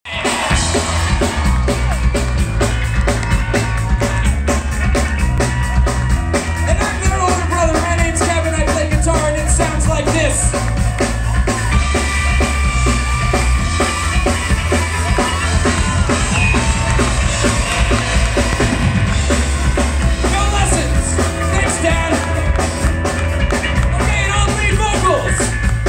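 A live ska-punk band playing loud through a club PA: a steady, driving drum beat with a heavy electric bass line and electric guitar.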